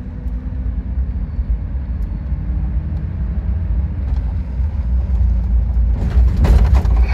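Inside the cab of a vehicle driving slowly: a steady low engine and road rumble, with a brief burst of noise about six seconds in.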